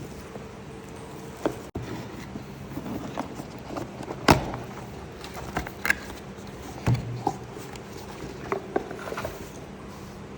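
Puzzle box and pieces handled on a surface: scattered taps, knocks and light rustles, the loudest knock about four seconds in, over a faint steady hum.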